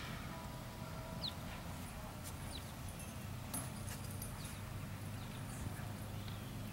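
A ridden horse's hoofbeats on arena sand as it moves around the ring, soft and faint over a steady low hum.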